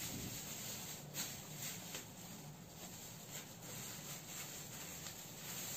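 Faint crinkling and rustling of a thin plastic bag being twisted and knotted shut by hand, with a few small clicks, over a steady low hiss.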